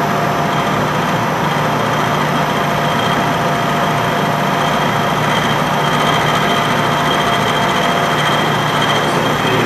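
Vertical milling machine running, the tip of its end mill cutting an open slot into the side of a metal block: a steady machining noise with a constant whine.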